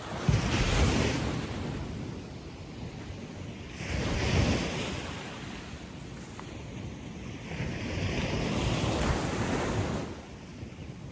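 Gentle sea waves breaking and washing up a sandy beach, three surges about four seconds apart, the last one longer and drawn out.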